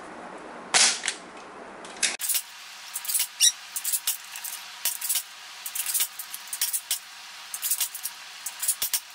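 BoomCo toy dart blaster being fired repeatedly and its Smart Stick darts hitting plastic and paper wall targets: a quick, irregular series of sharp clicks and taps, several a second.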